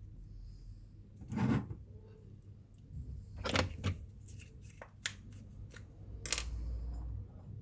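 A few separate clicks and knocks, as of tools and small parts being handled, over a low steady hum; the sharpest come about one and a half, three and a half, and six seconds in.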